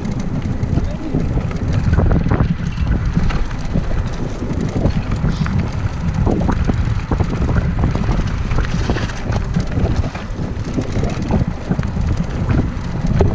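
Mountain bike rolling fast downhill over a bumpy brick-paved trail: tyres rumbling, with frequent rattles and clacks from the bike over the bumps, and wind buffeting the camera's microphone.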